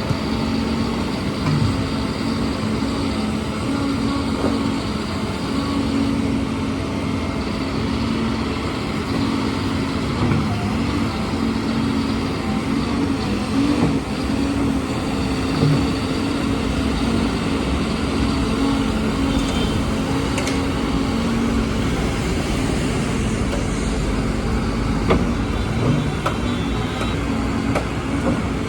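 A heavy engine, likely on construction machinery, running steadily with a constant droning hum that wavers briefly in pitch about halfway through, over continuous street noise.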